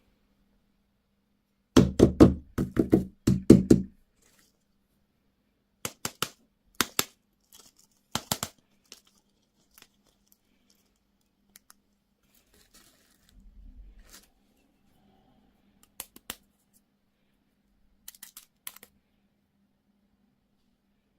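Plastic toy and candy packaging being handled and opened: a quick run of loud knocks and rattles about two seconds in, then scattered sharp clicks and taps.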